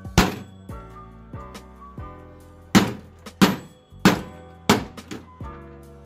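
A hatchet striking and chopping into a microwave oven's sheet-metal casing: a series of sharp thunks, with four heavy blows in quick succession near the middle, over background music.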